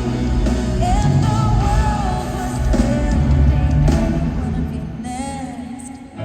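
A woman singing a pop ballad live with a band through a stadium sound system, with a heavy bass; the music fades down over the last two seconds.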